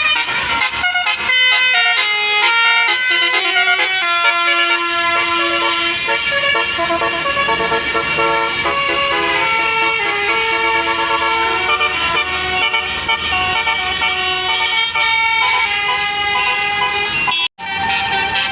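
Bus telolet 'basuri' musical air horn playing a melody of held, stepping notes. It breaks off for an instant near the end and then carries on.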